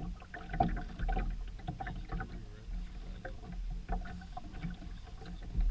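Water sloshing and splashing against a sailboat's hull under way, in irregular bursts over a steady low rumble.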